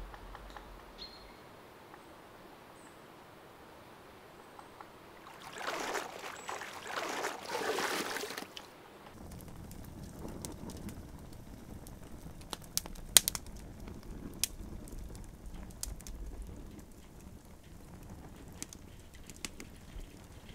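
Wood fire crackling in a fire pit: irregular sharp pops, one much louder than the rest, over a low steady rush of flames, from about nine seconds in. Before that, a quiet stretch, then a rushing, hissing noise that swells in three surges for about three seconds.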